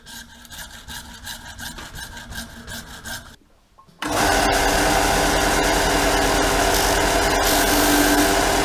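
Hand hacksaw cutting through a white tube held in a bench vise, in quick even strokes. It stops, and about four seconds in a 370 W belt and disc sander starts running loudly and steadily as the tube's cut end is pressed against it and ground smooth.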